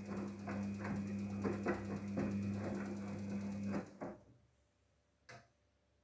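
Daewoo DWD-FT1013 front-loading washing machine tumbling its drum on the rinse: a steady motor hum under rhythmic sloshing of the water, two or three splashes a second. The drum stops about four seconds in, and one short knock follows a second later.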